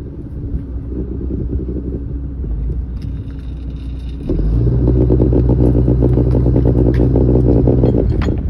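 Lobster boat's engine running, then throttled up sharply about four seconds in and held steady for some four seconds before easing off near the end: power applied to stop the boat as it comes into its berth.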